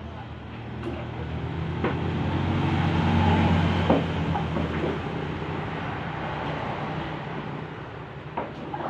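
A motor vehicle's engine passing by, its low hum growing louder to a peak about three and a half seconds in and then fading. A few knocks and scrapes of a shovel pushing wet flood mud across a concrete floor sound over it.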